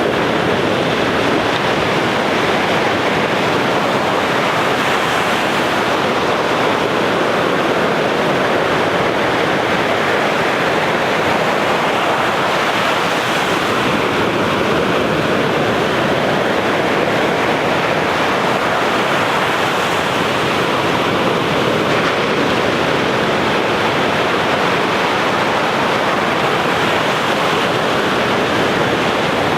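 Sea surf: waves breaking and washing on the shore in a steady, unbroken wash of noise.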